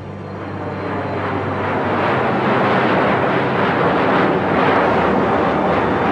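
Jet airliner taking off, the roar of its engines building over the first two seconds and then holding steady and loud.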